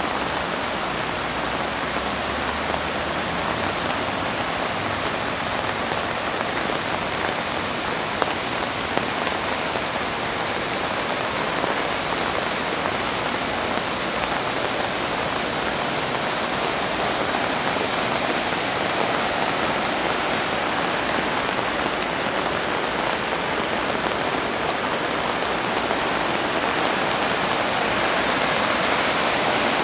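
Heavy rain falling and floodwater rushing over a street, a steady hiss that grows slightly louder near the end.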